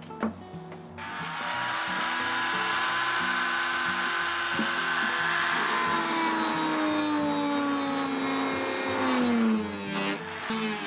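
A power tool starts about a second in and runs under load, its pitch slowly sinking. It cuts out briefly near the end and starts again. Background music plays underneath throughout.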